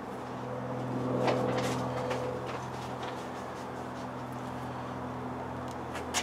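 A threaded steel stud being screwed by hand into a tapped hole in a copper bar, giving light metallic clicks and scrapes, loudest about a second in, with a sharper click at the end. A steady low hum runs underneath.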